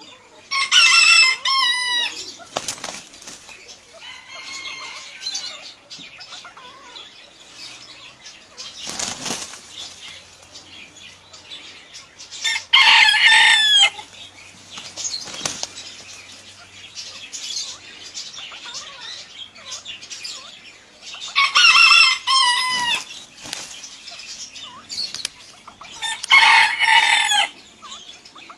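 Rooster crowing four times, each crow about a second and a half long, with wings flapping and rustling in between.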